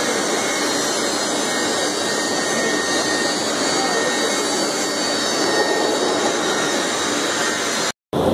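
Steady, loud machinery noise of a railway wheel forging and rolling line working a red-hot steel wheel, an even roar with no rhythm. It cuts out for a moment near the end.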